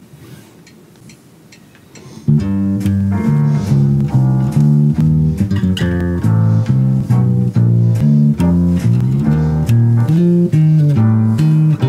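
Electric bass guitar played fingerstyle: about two seconds in it starts a melodic line of plucked notes, several a second, moving up and down.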